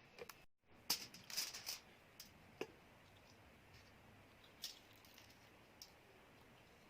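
Close-miked bite and chew of a cheese stick: a short cluster of sharp crackles about a second in, then a few faint scattered mouth clicks.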